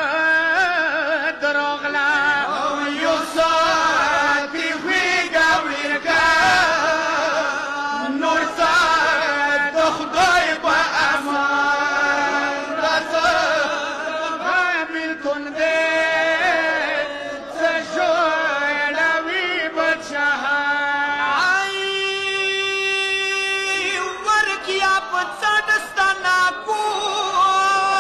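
A male reciter chanting a Pashto noha, a mourning lament for Imam Husayn, in long sung phrases, with one long held note about two-thirds of the way through.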